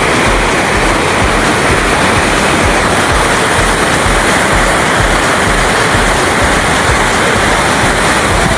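Waterfall rushing, a loud steady roar of falling water.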